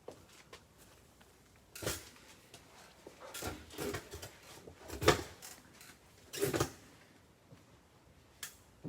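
A series of knocks and clatters, five or so separate hits spread over several seconds, the loudest about halfway through, like things being handled and set down.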